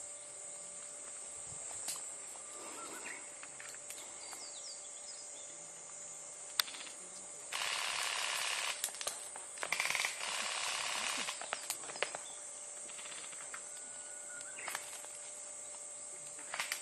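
Summer grassland ambience: a steady high insect buzz with scattered bird chirps and a few faint clicks. Two louder hissing stretches of about a second each come about halfway through.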